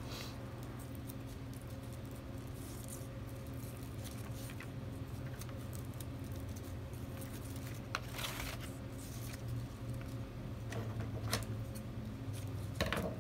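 Glittery gold ribbon rustling as hands fold and pinch it into a bow, in short irregular bursts over a steady low hum. Near the end come a few short clicks as scissors cut the ribbon.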